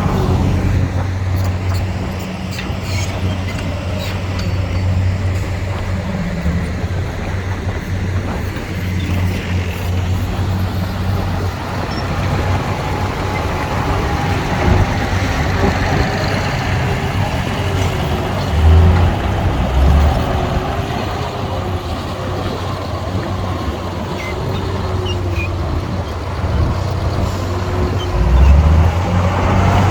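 Heavy diesel engines of dump trucks and bulldozers running steadily with a low hum, the pitch wavering as they work. A few short, heavy low thumps come about two-thirds of the way through and again near the end.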